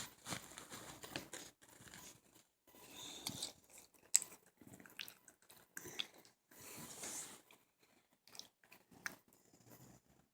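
Snoring: slow breaths swelling and fading about every three to four seconds, with short sharp clicks in between.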